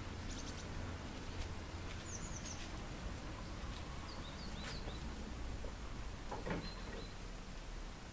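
Outdoor garden ambience: a steady low background rumble with a few short, high-pitched chirps scattered through, about two seconds, four and a half seconds and near the end.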